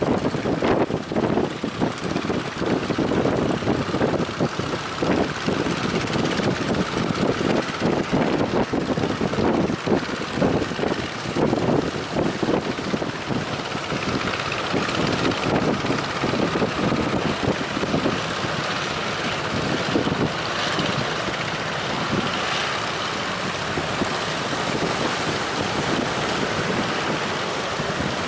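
Strong wind buffeting the microphone in uneven gusts, steadying in the second half.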